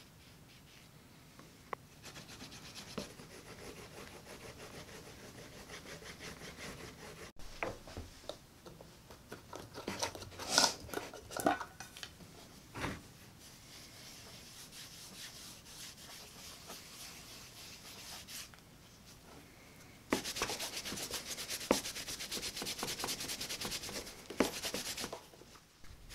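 Cloth rubbing over a leather knife sheath, buffing it, with a few knocks from handling around the middle. The rubbing is loudest and most rapid during a stretch near the end, then cuts off suddenly.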